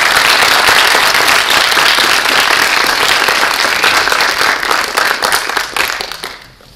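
Audience applauding, a dense, loud patter of many hands clapping that tapers off in the last second or so.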